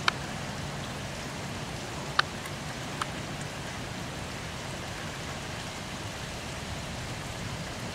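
Steady rain falling in a thunderstorm, an even hiss, with a few sharp ticks right at the start and about two and three seconds in.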